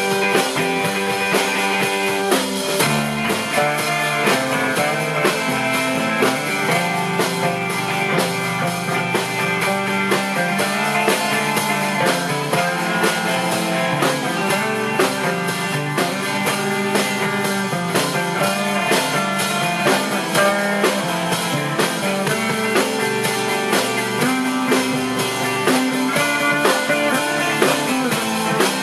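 Rock band playing an instrumental passage live: electric guitar, bass guitar, keyboard and drum kit together, with a steady drum beat and no vocals.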